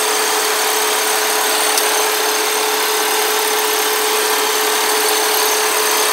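2003 Ford Windstar's 3.8-litre V6 idling steadily with the air conditioning on, running smooth with no knocks. One steady whining tone over an even hiss.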